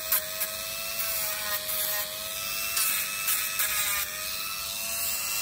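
Dremel rotary tool with a sanding drum, its motor running at a steady whine while grinding down a dog's toenail. A couple of short taps against the nail near the start, then steadier grinding.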